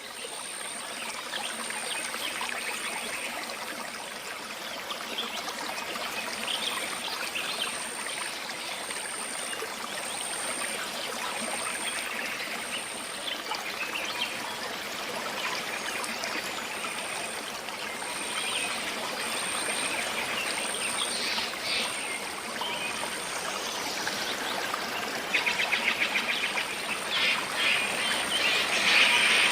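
Small forest stream trickling and splashing over stones, with birds calling now and then. Near the end a louder bird call repeats rapidly.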